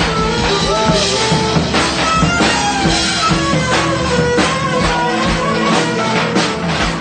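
Rock-style music with a drum kit keeping a steady beat and guitar.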